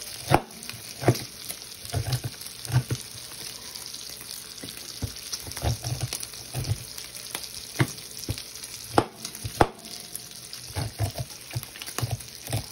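Bacon sizzling steadily in a skillet, with irregular knocks and scrapes from a knife cutting kernels off an ear of corn against a metal bowl.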